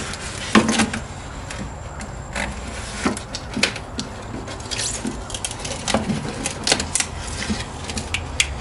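Handling noise of an adhesive shelf foundation strip being lined up and worked around the inside of a hard motorcycle saddlebag: scattered light clicks, taps and rubbing.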